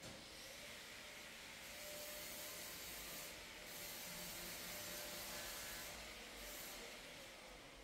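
Faint steady hiss of room tone, with no distinct event.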